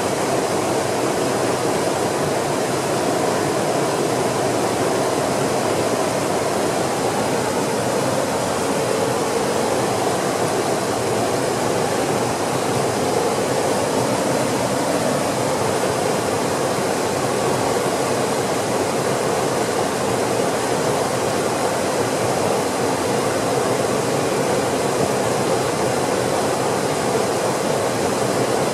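Rapids of a rocky mountain creek: white water rushing and splashing over boulders and rock ledges in a steady, unbroken rush.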